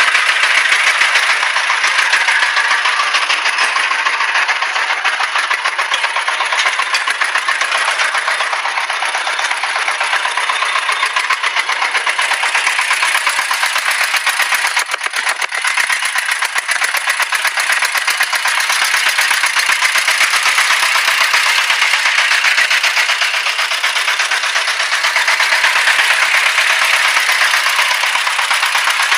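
Truck engine running steadily with a fast, even rattling clatter.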